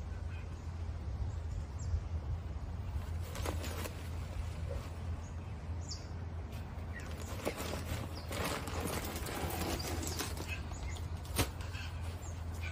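A paper bag of white powder rustles and pours into a steel wheelbarrow of sand, with scattered scrapes and a single sharp tap near the end, over a steady low hum.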